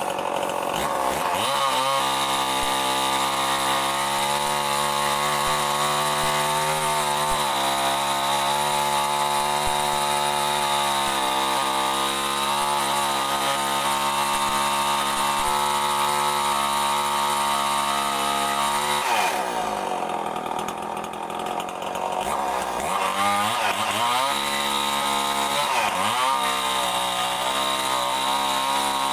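Chainsaw running under load as it rips lengthwise through a mahogany board. About two-thirds of the way in, its pitch falls to a low idle for a few seconds, then it revs up and down several times and settles back into the cut.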